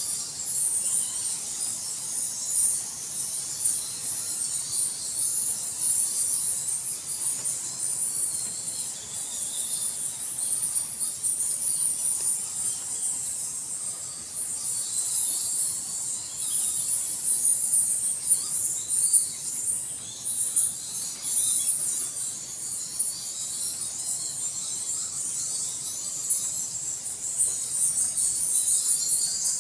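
A bat colony in its cave roost squeaking and chittering without pause, a dense high-pitched chatter that swells and fades.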